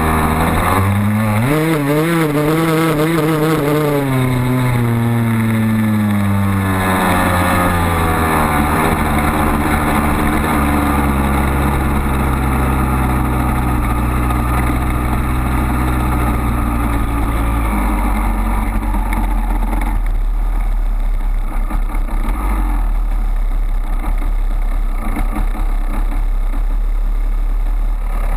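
Honda CR250R's single-cylinder two-stroke engine running as the dirt bike is ridden. The note rises sharply about a second in, wavers, then falls gradually over the next fifteen seconds and settles to a low steady run near the end.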